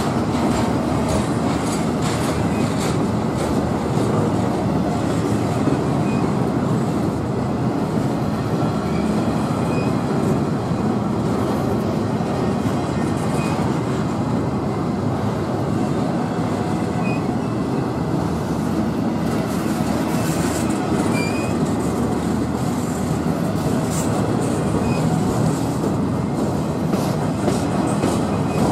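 Freight train cars rolling past: a steady rumble of steel wheels on rail, with clicking over the rail joints and a few brief high wheel squeaks.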